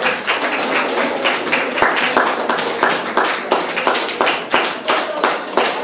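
Audience applauding, with many hands clapping together. The clapping is dense at first and becomes more evenly spaced near the end.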